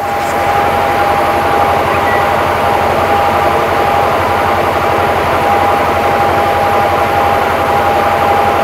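Semi-truck diesel engine running steadily, heard from inside the cab, as the air compressor builds air pressure toward the governor cut-out. It grows louder right at the start and holds level, with a steady high tone over the engine.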